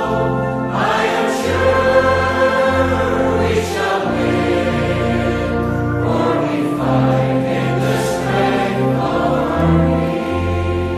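A choir singing a Christian worship song over held low notes from the accompaniment.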